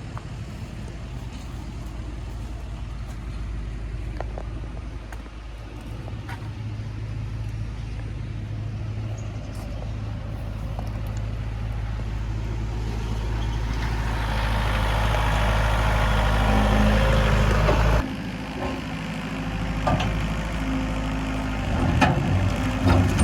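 A large engine running steadily, growing gradually louder until it drops back sharply about eighteen seconds in, then picking up again with a few knocks near the end.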